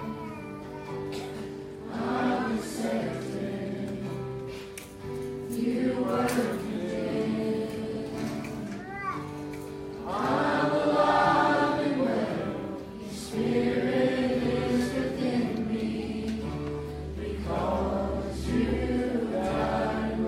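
Congregation or choir singing a gospel hymn in phrases of held notes, with instrumental accompaniment.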